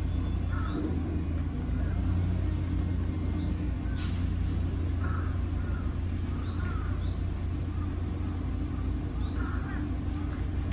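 Steady low mechanical rumble, like construction machinery or traffic, with short bird calls repeating over it every second or two.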